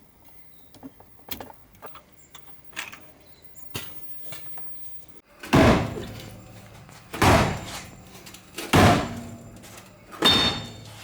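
Light clicks and rattles, then four heavy blows on metal about a second and a half apart, each ringing briefly.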